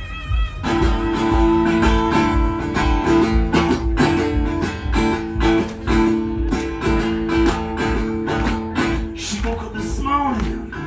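Instrumental intro of a blues song: strummed acoustic guitar with a steady beat, coming in about half a second in after a held note or two.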